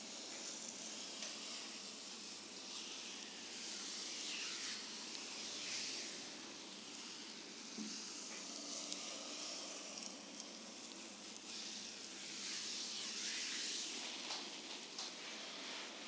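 Hands kneading and gliding over the bare skin of a lower back in a deep-tissue massage, picked up close by a microphone worn on the therapist's wrist: a soft rubbing hiss that swells and fades with slow strokes.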